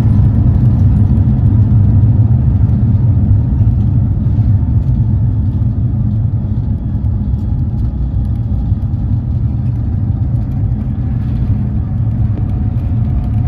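Airbus A350-900 cabin noise: a steady low rumble from the Rolls-Royce Trent XWB engines and the airframe, easing off slightly a few seconds in.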